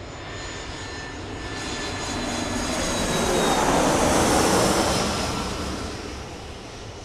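A rushing sound effect that swells steadily to a peak about four to five seconds in and then fades away, with faint thin tones running through it, like a plane passing over.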